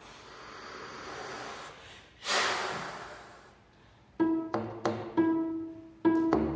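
Two swells of soft, toneless breathy air noise, the second louder and slowly fading, as an extended technique in a cello and baritone saxophone duo. From about four seconds in, a series of plucked pizzicato cello notes, mostly on one repeated pitch, each ringing briefly.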